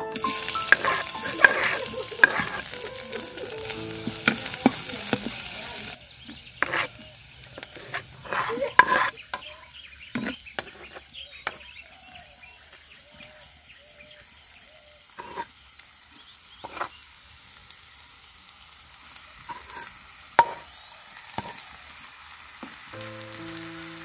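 Ingredients sizzling loudly in hot oil in a clay pot, the sizzle stopping abruptly about six seconds in. After that a wooden spoon knocks and scrapes against the clay pot while vegetables are stirred and spiced pieces are tipped in, in scattered clacks.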